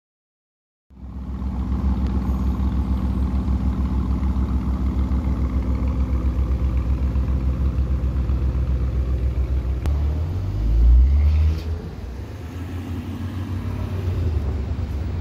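Lamborghini Urus twin-turbo V8 idling close by with a steady, pulsing low rumble. About ten seconds in, a brief, louder burst of revs.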